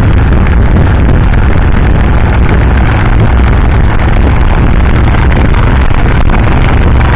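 Motorcycle riding at a steady road speed: loud, constant wind rush over the microphone with a low engine drone underneath.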